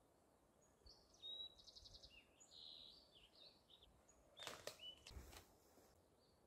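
Faint songbird chirps, with a quick trill of repeated notes in the first few seconds. Two brief faint clicks follow a little later.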